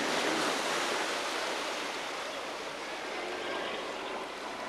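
Steady rush of churning water from a motorboat's wake, easing off slightly.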